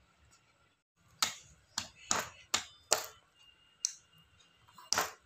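Hard plastic of a baby walker's toy tray being tapped and knocked by a baby's hand, a run of about eight sharp, irregular taps starting about a second in.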